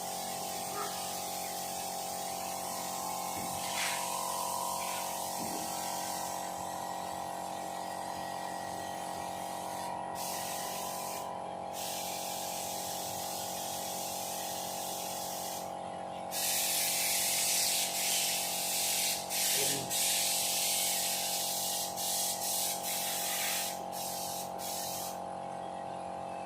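Compressed air hissing from an air gun in on-off bursts, faint at first, then louder and broken by several short stops in the second half, over a steady machine hum.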